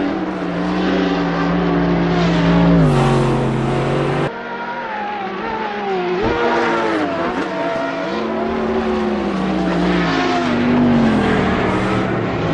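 Dubbed-in car engine sound effect, running hard with its pitch shifting. It holds steady, drops a step near the third second, then changes suddenly and keeps rising and falling as if revving through bends.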